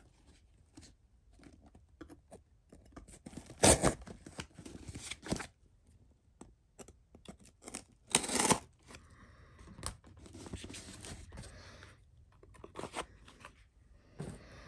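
Paper packing tape on a cardboard box being cut and ripped open, with a few short, loud rips (the loudest about 4 and 8 seconds in) between quieter scraping and rustling of the cardboard as the box is handled.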